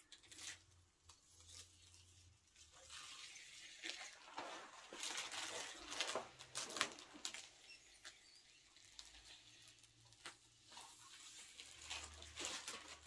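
Clear protective plastic film being peeled off a plastic bonnet deflector: faint crinkling and rustling that comes and goes in spells.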